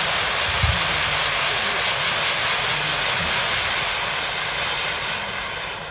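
Spinning pyrotechnic fountain wheels spraying sparks: an aluminium fountain sun between two coloured titanium fountain pieces make a steady loud hiss with a fast regular pulse. The hiss fades near the end as they burn out.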